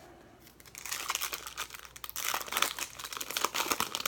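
Wrapper of a 2018 Topps Chrome Update trading card pack being torn open and crinkled, a dense crackling that starts about a second in and runs nearly to the end.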